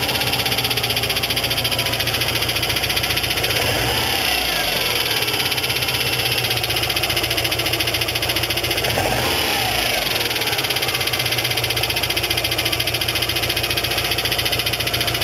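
Subaru Forester SF5's flat-four engine running with a fast, even knocking rattle, revved up briefly twice, about four and nine seconds in. The abnormal noise comes from a cracked drive plate between the engine and the torque converter.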